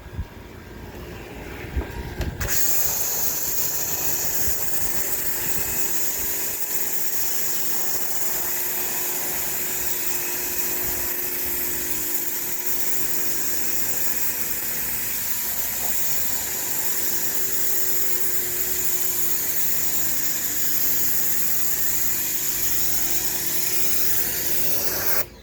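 Pressure washer spraying a cedar deck: the loud, steady hiss of the water jet on the boards with the machine's motor running underneath. The spray starts suddenly about two and a half seconds in and cuts off just before the end.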